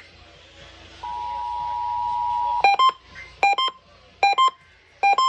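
Emergency Alert System attention signal: the steady two-tone chord of 853 and 960 Hz, sounding for about a second and a half. It then breaks off into a run of sharp electronic double beeps that repeat a little faster than once a second.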